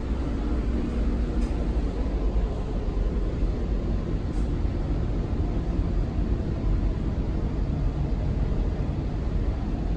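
Steady low rumble and hum of an electric train standing at the station platform, waiting to depart. A faint hum tone sits over the rumble near the start.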